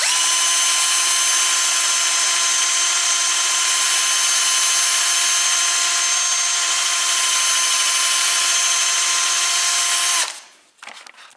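Electric drill running at one steady speed, spinning a wad of steel wool to scour rust and dirt out of a bicycle's bottom bracket shell; it stops abruptly about ten seconds in.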